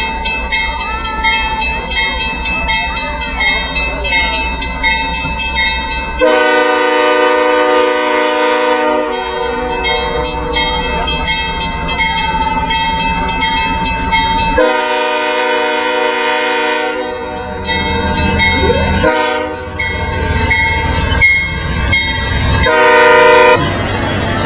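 Canadian Pacific diesel locomotive approaching with its bell ringing steadily over the engine's rumble. About six seconds in it starts sounding its air horn in a series of long blasts, with a short one near the end.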